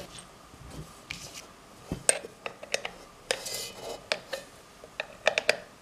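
Metal parts of an old Midgard articulated lamp being handled during reassembly: scattered light clicks and clinks, with a short scrape a little past the middle and a quick cluster of clicks near the end.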